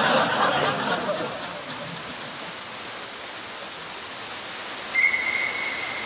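Steady hiss of indoor swimming-pool noise. About five seconds in, a whistle gives one steady blast lasting about a second.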